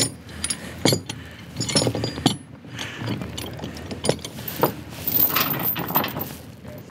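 A ratchet chain binder or tie-down being worked in short irregular strokes, with a steel transport chain clinking and clanking against the trailer deck as the load chain is tightened. A few louder metal knocks stand out among the clicks.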